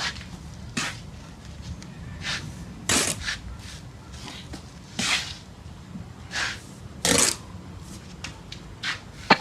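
Steel bricklaying trowel scraping and tapping on mortar and brick: short strokes every second or so, with a louder scrape about three seconds in and again around five and seven seconds.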